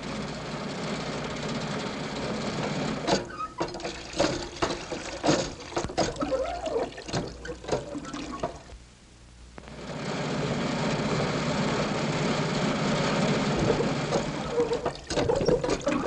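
An old open car's engine chugging steadily, then a hand water pump clanking and squeaking as water splashes into a wooden trough, then the car's engine running again.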